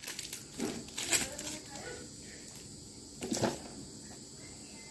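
Paper wrapping and tape being pulled and handled on a cardboard gift box, heard as a few brief crinkles and rips. The loudest comes about three and a half seconds in.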